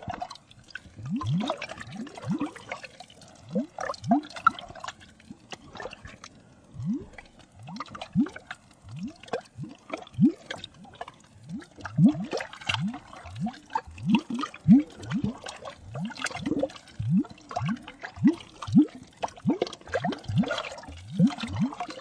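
Water sound effect: an irregular run of small drips and bubbling plops, each a quick rising blip, over a light watery hiss.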